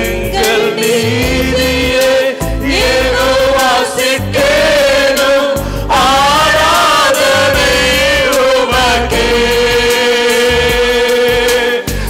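A man singing a Christian worship song into a handheld microphone, amplified over instrumental backing with a held tone and a low bass line.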